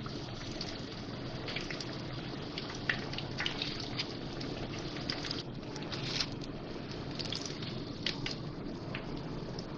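Hot oil sizzling steadily around coated kingfish fingers as they finish deep-frying to golden and are lifted out, with scattered sharp crackles and pops.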